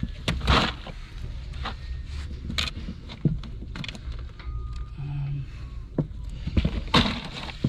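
Irregular knocks and scrapes as a bluefin tuna and a dorado are shifted and lowered into a plastic fish box packed with ice, over a steady low rumble.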